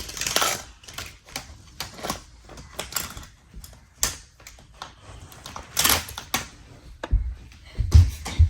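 Irregular plastic clicks and clacks of die-cast toy cars being handled and knocked against a plastic Hot Wheels playset, with a few heavier knocks near the end.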